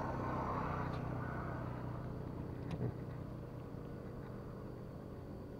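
A steady vehicle rumble that slowly fades, with a single sharp click a little under halfway through.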